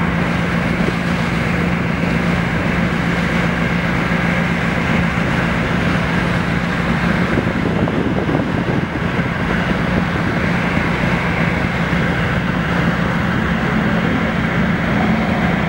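Steady hum and rumble of ship engines with a rushing wash of water, unchanging throughout.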